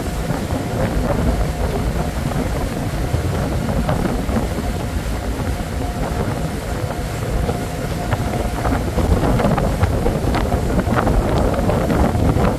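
Passenger ferry under way: a steady engine rumble and the rush of wind and water, with wind buffeting the microphone. It grows a little louder and gustier in the second half.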